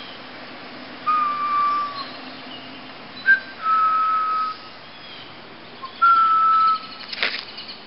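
A person whistling a few long held notes at much the same pitch, with pauses between them and a short higher note in the middle. There is a brief rustle or knock near the end.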